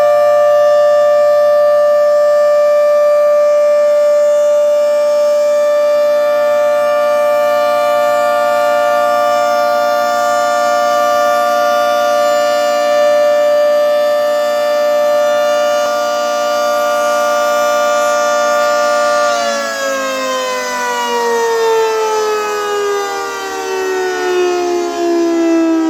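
Federal Signal 3T22 outdoor warning siren sounding the steady full-alert tone. About 19 to 20 seconds in it cuts power and winds down, its pitch sliding steadily lower.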